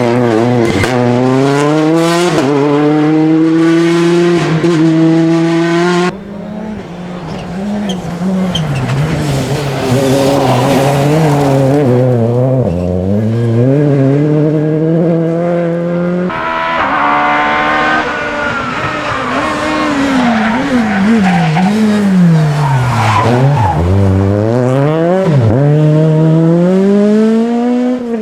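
Rally car engine revving hard, its pitch climbing and falling repeatedly through gear changes and lifts off the throttle. The sound changes abruptly about six and again about sixteen seconds in.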